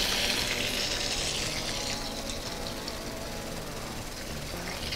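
Filet mignon searing on its edge on a hot Blackstone flat-top griddle, sizzling steadily. The sizzle is strongest at first and slowly eases off.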